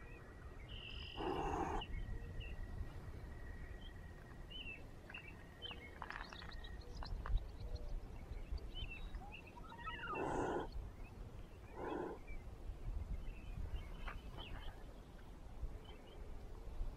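A cat hissing in short breathy bursts: once about a second in, then twice more close together later on, with birds chirping faintly throughout.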